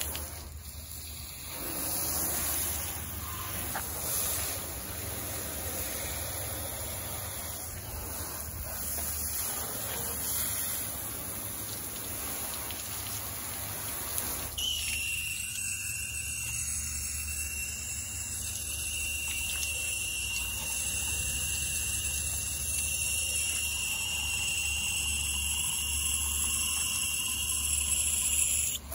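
Water spraying onto a car's bodywork, a steady hiss. About halfway through, a steady high-pitched whine comes in under the hiss and carries on.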